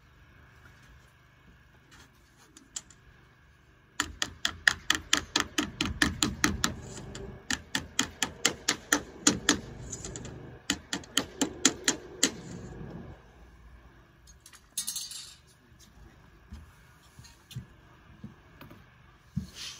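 Rapid hammer blows, about three a second, in three runs over roughly eight seconds, followed by a few scattered knocks and a short hiss.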